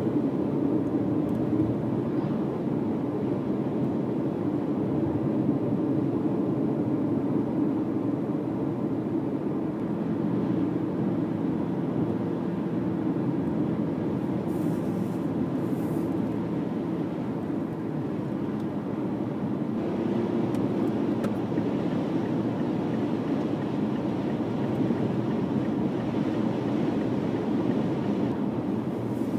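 Steady road and engine noise of a car travelling at highway speed, heard inside the cabin.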